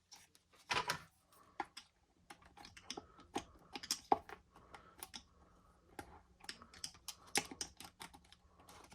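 Irregular light clicks and taps of plastic RC truck chassis parts and wires being handled while the motor wires are fished through the chassis.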